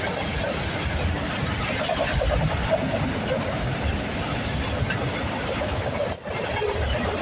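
Union Pacific freight train rolling past close by: a steady rumble and rattle of wheels on the rails, with no horn.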